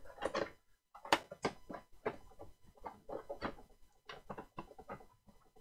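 Irregular clicks, knocks and scrapes of hands moving plastic radio parts and cables around inside an ammo-box radio go box, as the external speaker is pulled out.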